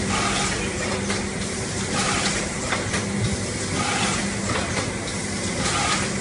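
Packaging-line machine with a Delta servo-driven cartesian pick-and-place gantry running through its cycle: a steady mechanical hum and hiss, with short knocks and clicks that come back about every two seconds.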